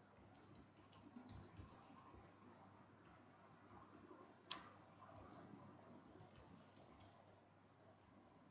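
Faint computer keyboard typing: scattered light key clicks, with one sharper keystroke about halfway through.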